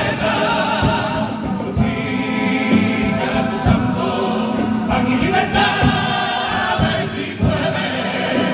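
Carnival comparsa: a male chorus singing a song in harmony together, over a steady beat.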